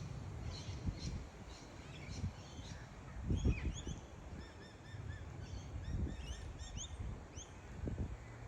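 Birds calling in short chirps and quick upward-sweeping notes, with a brief run of repeated notes about halfway through. Low dull thumps come and go beneath them, the loudest a few seconds in.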